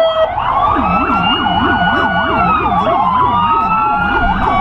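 Police car sirens sounding together: a fast yelp warbling up and down about four times a second, over a slower wail that rises, holds and falls, then starts rising again near the end.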